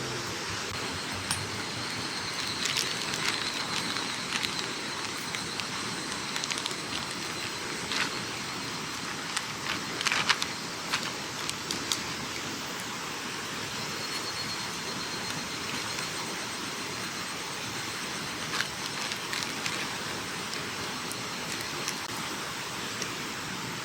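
Steady rushing of a river, with scattered small clicks and a few sharper knocks about ten seconds in.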